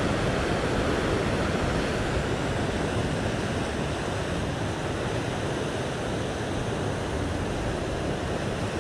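Sea surf washing and foaming against the rock ledge below: a steady, unbroken rush of breaking water.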